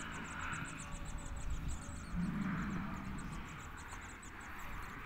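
Camels at a watering trough: one gives a short, low, rough grumble a little over two seconds in, over a steady low rumble and a high, rapid chirping at about five pulses a second.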